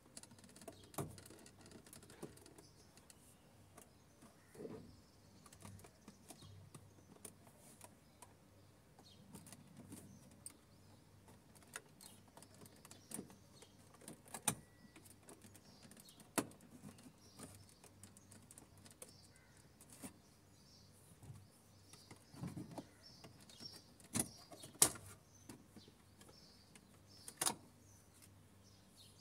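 Plastic centre-console trim of a Toyota RAV4 being pried loose around the gear shifter with a screwdriver: scattered light clicks and knocks as clips give and the panel shifts, the sharpest few near the end as the trim lifts free.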